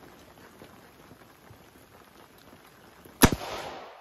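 Big-bore PCP air rifle, a Samyang modified with a copper barrel, firing a single copper bullet: one sharp report about three seconds in, followed by a short decaying tail.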